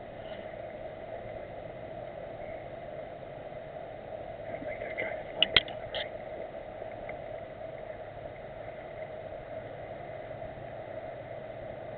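Steady background hiss, with a quick cluster of sharp snaps about halfway through: two loud cracks close together, then a third half a second later, typical of airsoft gun shots.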